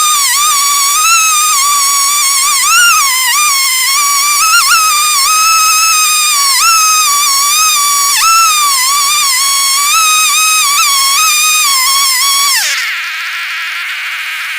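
Jonsered 70E two-stroke chainsaw running at full throttle in a chainsaw mill, ripping along an ash log, its high whine wavering as the load on the chain changes. Near the end the throttle is let off: the pitch drops sharply and the saw falls back to a quieter, lower running.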